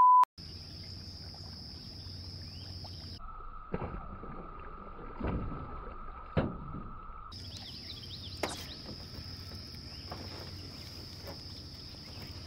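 A short loud beep, then a steady high-pitched insect drone over open-water ambience, jumping in pitch where the clips cut. A few sharp splashes break through, among them a bass striking a topwater frog lure on the surface about six seconds in.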